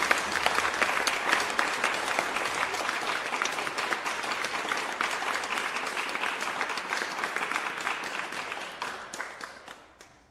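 Audience applause, a dense mass of clapping that fades away over the last couple of seconds.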